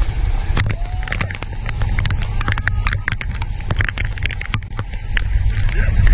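Hurricane-force wind buffeting the microphone, a heavy low rumble, with many sharp clicks and taps scattered throughout.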